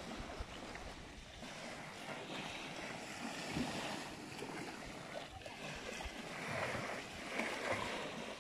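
Small waves washing up on a sandy shore, with some wind on the microphone; the wash swells louder about six seconds in.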